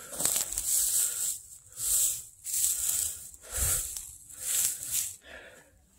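Rustling and crackling of dry ground litter, in about six bursts roughly a second apart, as someone rummages or steps through it.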